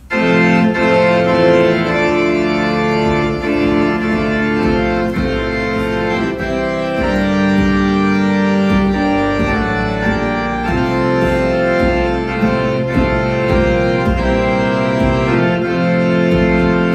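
Organ playing a hymn in sustained chords, starting abruptly and changing chord every second or two.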